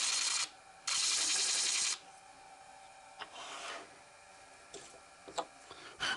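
Pen blank pressed against a sanding disc spinning on a lathe headstock, facing the blank's end square: two loud bursts of abrasive hiss, the second about a second long, then the disc runs quietly while the blank is handled, with a few light clicks and a knock near the end.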